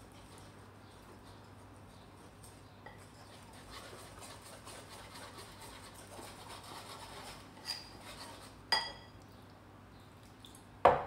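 Wire whisk stirring chickpea-flour batter in a ceramic bowl, soft and faint. About eight seconds in come two sharp ringing clinks, then a louder knock just before the end.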